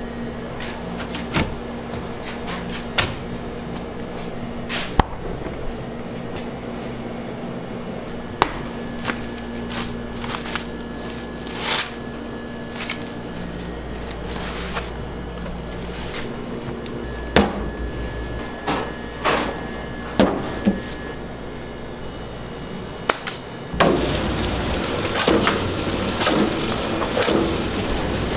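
Hands handling laminated dough: a stainless refrigerator door opening, plastic cling wrap crinkling as the dough block is unwrapped, and scattered knocks, over a steady hum of kitchen equipment. A louder, denser stretch of rustling noise starts near the end.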